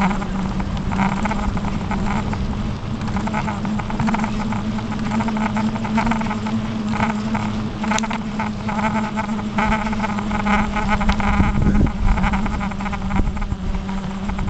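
Bicycle riding along a tarmac path: a steady hum held at one pitch, with rushing, rolling noise over it.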